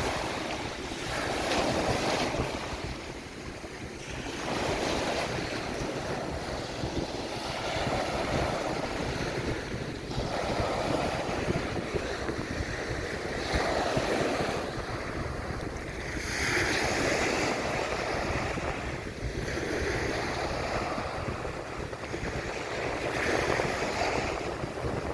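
Small waves breaking and washing up on a sandy beach, one swell every few seconds, with wind rumbling on the microphone.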